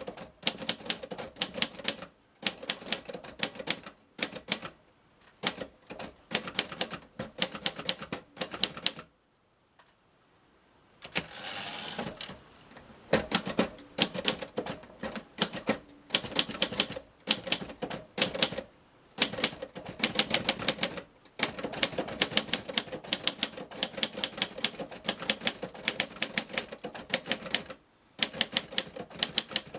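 A 1951 Royal Quiet De Luxe manual portable typewriter being typed on: quick runs of sharp key strikes, several a second, broken by short pauses. About a third of the way in, after a silent break of a second or two, comes a brief sliding rush as the carriage is returned.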